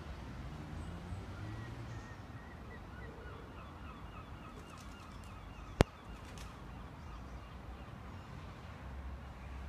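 Outdoor ambience of faint bird calls, runs of short repeated chirps over a low steady rumble, with a single sharp click about six seconds in.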